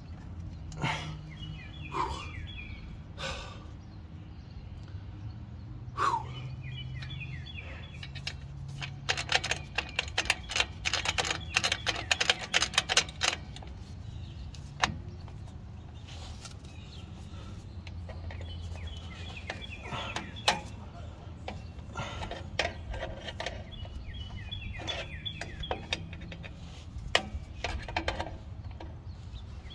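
Small metal clicks and clinks from a Ford F150 rear drum brake's adjuster assembly, lever and spring as they are worked by hand, with a fast run of ticking from about nine to thirteen seconds in.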